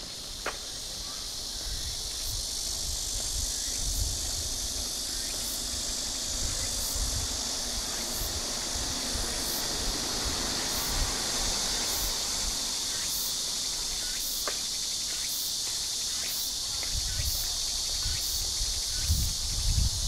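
A chorus of cicadas buzzing steadily in the roadside trees, a dense high drone that swells over the first couple of seconds and then holds. Low irregular thuds sound underneath, strongest near the end.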